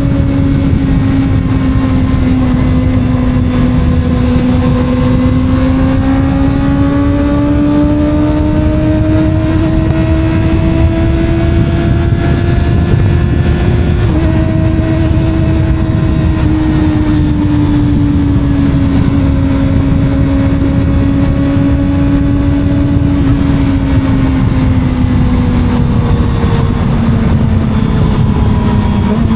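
Sport motorcycle engine running at high revs while riding, its pitch climbing slowly, dipping slightly about halfway, then easing down toward the end. A heavy wind rumble on the microphone runs under it.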